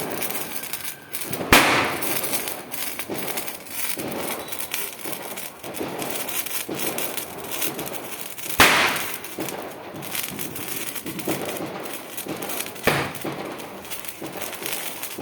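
Diwali firecrackers going off: a steady crackling hiss, broken by three sharp bangs about a second and a half in, about eight and a half seconds in, and about thirteen seconds in.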